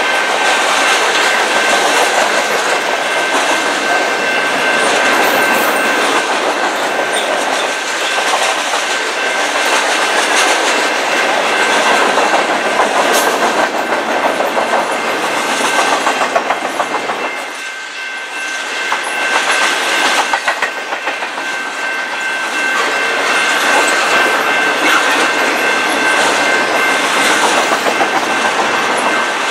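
Freight cars of a long mixed freight train (autoracks, flatcars and intermodal well cars) rolling past, their wheels running loudly and steadily on the rails. The noise eases briefly a little past halfway, and a steady high tone runs through it.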